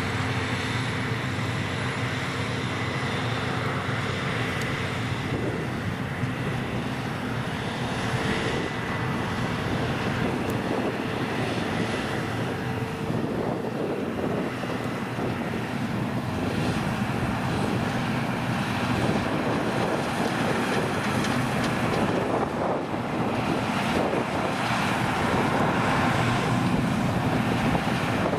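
Claas Lexion 540 C combine harvester running steadily under load, a constant machine hum with a faint high whine over it, and wind buffeting the microphone.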